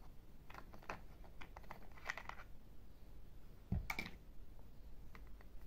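Light plastic clicks and rattles as a toy truck's plastic wheel is twisted and worked loose by hand. A louder knock comes about four seconds in, as the wheel comes off.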